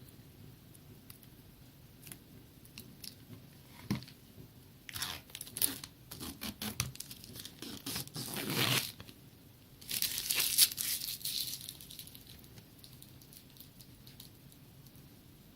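Packaging being crinkled and torn by hand in two spells of crackling, the first about five seconds in and a shorter second one about ten seconds in, with a few light handling clicks before them.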